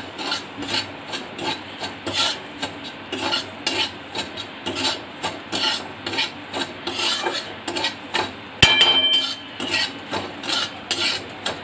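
Metal spatula scraping and stirring semolina roasting in ghee in a metal kadai, rasping strokes about twice a second. One sharp metallic clank comes about three-quarters of the way through.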